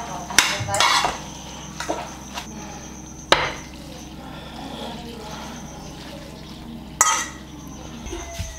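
A utensil scraping and clattering in a steel pot of noodles, then the pot tipped out onto a china plate, with a few sharp knocks of metal on crockery, the loudest about three seconds in and again near seven seconds. A faint steady hum runs underneath.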